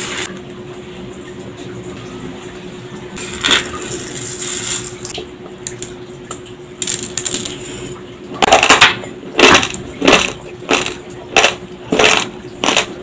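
Raw basmati rice being chewed close up: crisp crunches of the dry grains about every two-thirds of a second, starting about eight seconds in. Before that, quieter rustles of a metal spoon scooping through dry rice grains in a ceramic bowl.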